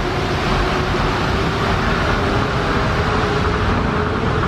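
Steady road traffic noise of vehicles along a road, with a faint steady hum throughout.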